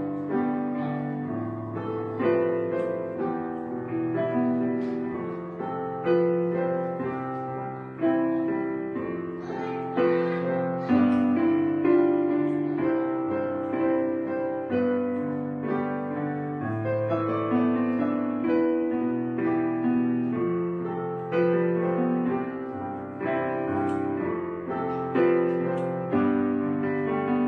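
Background piano music, with slow chords and held notes.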